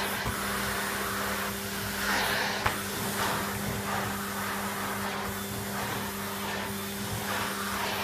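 Numatic Henry HVR200-12 620 W two-speed cylinder vacuum running steadily on high power, a low motor hum under the rush of air, swelling slightly now and then as the older Numatic floor tool is pushed back and forth over carpet.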